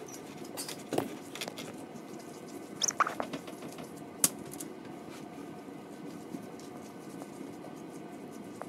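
Raw ground meat squishing as gloved hands roll it into a meatball, with a few sharp clicks.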